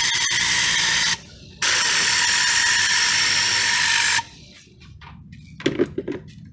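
Tornador-type air cleaning gun blasting compressed air and cleaning solution: a loud hiss with a steady whistling tone and fine rapid ticking. The trigger is let go about a second in, squeezed again half a second later, and released after about four seconds.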